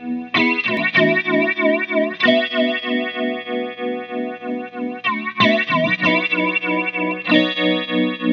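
Guitar chords played through a Chase Bliss Spectre through-zero flanger pedal with its regeneration (feedback) being ramped, giving a sweeping, pulsing flange on the sustained notes. Chords are struck several times, and the loudness throbs evenly a few times a second, a tremolo-like effect from the modulation crossing the zero point.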